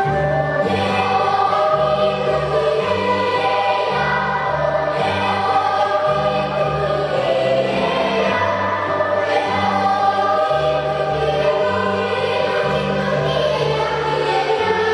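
Children's choir singing with instrumental accompaniment, over a steady bass line that changes note about once a second.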